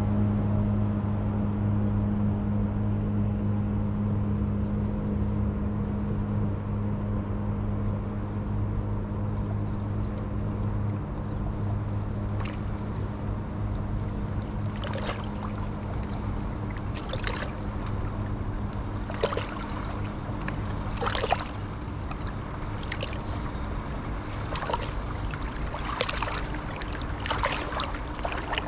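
A motorboat's engine hums steadily on the river and slowly fades. From about halfway, water splashes and laps in short, irregular slaps that grow busier toward the end.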